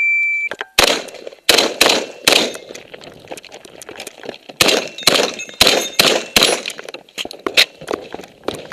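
A shot-timer start beep, then a Saiga 12 semi-automatic 12-gauge shotgun fired rapidly in quick strings of shots. Steel targets faintly ring after several hits.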